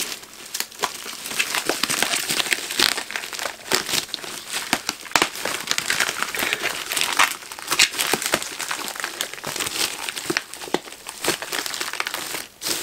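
Plastic courier mailer bag crinkling and crackling continuously as hands handle it and tear it open.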